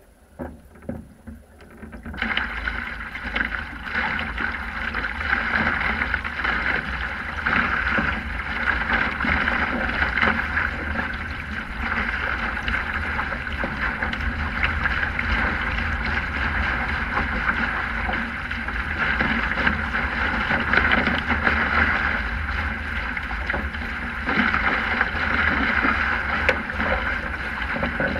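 Water rushing and splashing along a Sprint 15 catamaran's hull as it sails at speed, with wind buffeting the microphone as a low rumble. It jumps from quiet to loud and steady about two seconds in.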